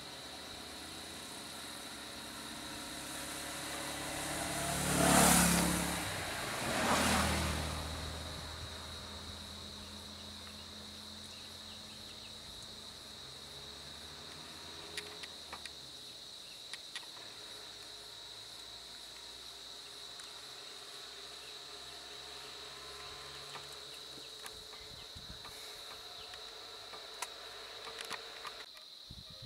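A motorcycle and a small car driving past close by, one after the other about two seconds apart, each swelling and fading away. Underneath, a vehicle engine idles steadily and a high insect drone carries on throughout.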